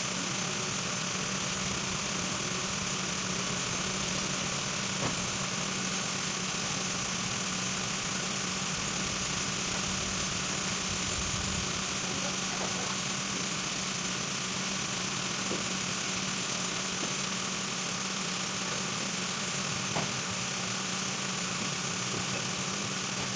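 Double-station beer bucket washing and filling machine running steadily, a constant hum under a strong hiss. Two short, sharp clicks stand out, about five seconds in and near the end.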